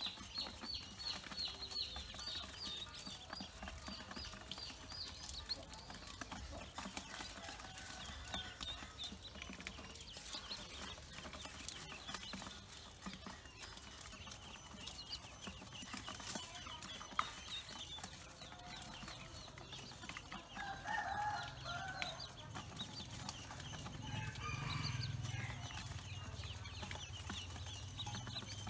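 A group of Pekin ducklings peeping continuously, many quick high-pitched calls overlapping, while they peck at grain. About two-thirds of the way through, a louder, lower-pitched call stands out.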